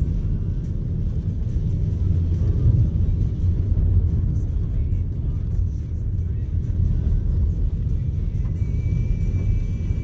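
Steady low rumble of a four-wheel drive's engine and tyres on a sealed road, heard from inside the cabin. A thin high tone comes in near the end.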